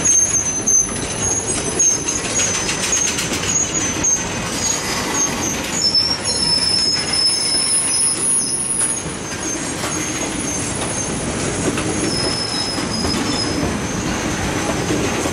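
Train cars rolling past on the rails, with a steady rumble and a thin high wheel squeal that comes and goes, and sharp clicks over the rail joints in the first few seconds.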